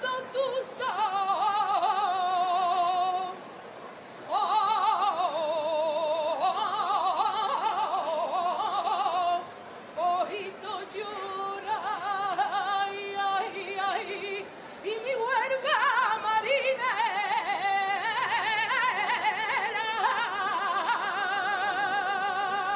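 A woman singing a flamenco saeta unaccompanied: long, heavily ornamented phrases with a wide, wavering vibrato, broken by short pauses for breath.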